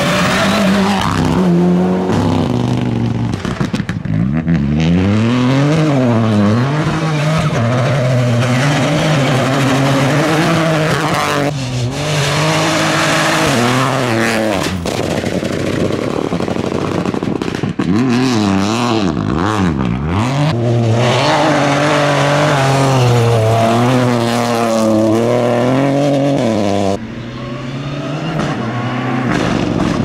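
Rally cars, Mitsubishi Lancer Evolutions among them, driven hard on a gravel stage: turbocharged engines revving high, pitch climbing and dropping again and again through gear changes and lifts, over the hiss of tyres on loose gravel. The sound changes abruptly several times as one car gives way to the next.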